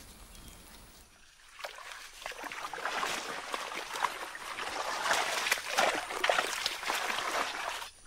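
Water splashing and trickling, with many small splashes and clicks, growing louder from about a second and a half in.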